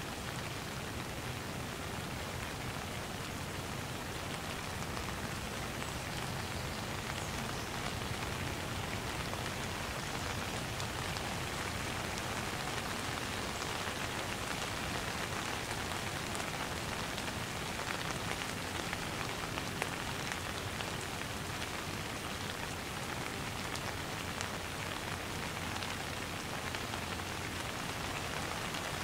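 Light rain falling steadily, a constant hiss of rain flecked with many small drop ticks.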